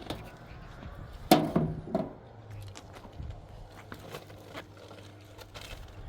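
Two sharp knocks about a second apart, the first the loudest with a brief ringing tone, amid light clicking and rustling.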